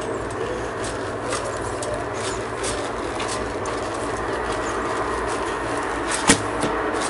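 Steady background noise with faint scattered ticks, then one sharp snap about six seconds in as a 45 lb Samick take-down recurve bow is shot.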